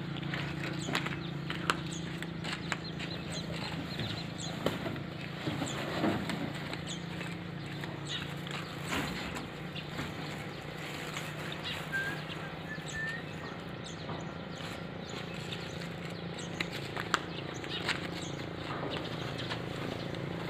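A steady low hum with scattered knocks and thuds from sacks of produce being shifted and handed down off a pickup truck's bed.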